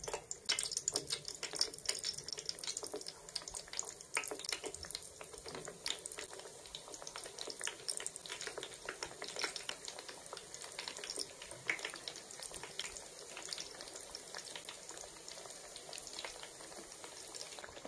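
Batter-coated eggplant slices (baingan pakoras) frying in hot oil over a low flame: a steady sizzle of many fine crackles and pops, busiest in the first few seconds and easing a little later.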